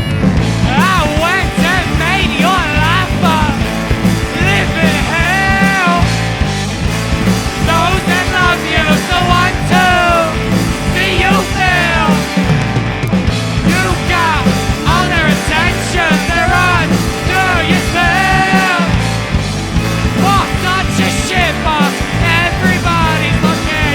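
Rock band playing a full-band song: drums and bass under a wavering lead melody line.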